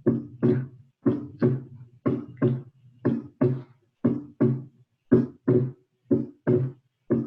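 Recorded heart sounds played back: a steady lub-dub, about one beat a second, each beat a pair of low thumps (first and second heart sounds). It is a demonstration of the second heart sound splitting on inspiration and sounding single on expiration.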